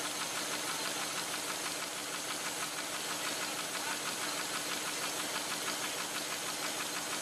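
Curtius envelope-making machine running at production speed, paper blanks fed through its rollers: a fast, even mechanical clatter over a steady hum and hiss.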